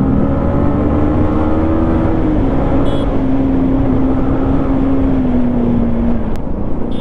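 Yamaha MT-15's single-cylinder engine with an Akrapovic exhaust, running at a steady cruise under way. The note holds, then eases slightly lower over the second half, over a constant rush of low noise.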